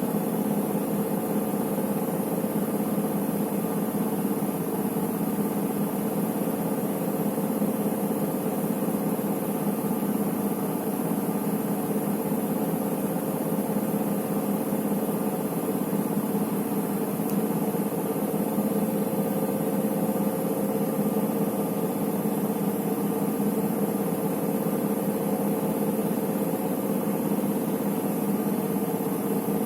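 Electrolux EWT 1377VIW top-loading washing machine spinning steadily with an even motor hum and whir, without a break. It is stuck in the spin, failing to stop at the end of its cycle.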